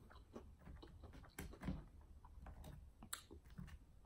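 Faint mouth smacking and chewing on a fried chicken wing: scattered sharp wet clicks, one sharper about three seconds in.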